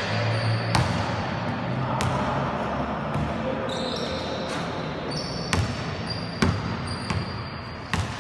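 A basketball thudding on the hard court floor and hoop during shooting practice: about six sharp knocks at irregular intervals. Short, thin high squeaks come and go among them.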